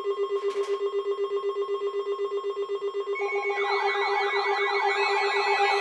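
Weather-radio alert alarms sounding for an incoming severe thunderstorm warning. A rapid pulsing tone runs over a steady higher tone, and about three and a half seconds in a warbling, siren-like alarm joins them.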